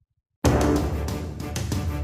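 Background music cutting in suddenly about half a second in, with a deep bass and a steady beat.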